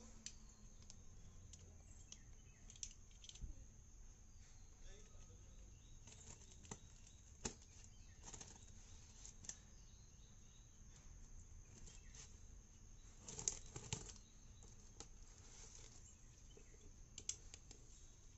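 Faint scraping and scattered small clicks of a box cutter slicing the packing tape on a cardboard parcel, with a louder cluster of crackles about three-quarters of the way through.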